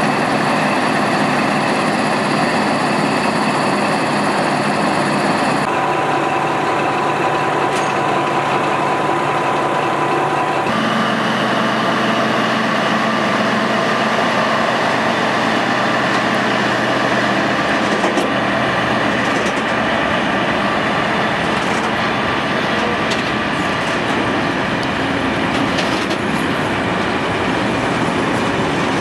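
V100-type diesel-hydraulic locomotives running under power as they pull past. The engine note holds steady with a hum of several tones and shifts twice, about 6 and 11 seconds in. From about 18 seconds on, sharp wheel clicks sound as the hopper wagons roll over the rails.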